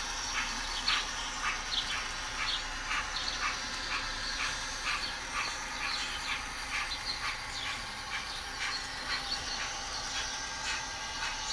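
N scale model trains running on the layout track: a steady low running noise with short, sharp clicks at about two a second as the cars pass.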